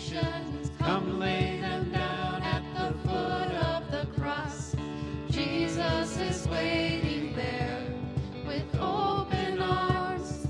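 A small worship band singing a worship song: several voices singing together into microphones, accompanied by grand piano and acoustic guitar, playing without a pause.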